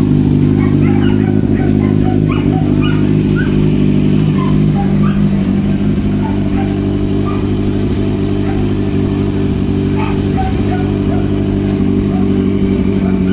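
Kawasaki Z1000 inline-four idling steadily through a newly fitted aftermarket exhaust canister, an even note with no revving.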